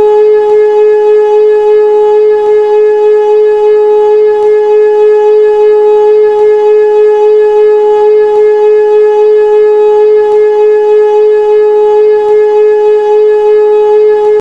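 Old Hörmann F71 civil defense siren being tested, sounding a loud, steady tone held at one pitch, with a slight regular waver in loudness.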